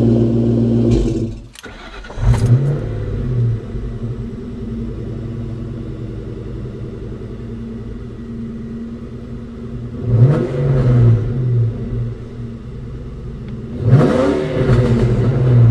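1996 SVT Mustang Cobra's 4.6-litre DOHC V8 through a 3-inch Mac catback with an X-pipe: loud at the tailpipes for about a second, then heard from inside the cabin idling, with three short revs blipped about two, ten and fourteen seconds in.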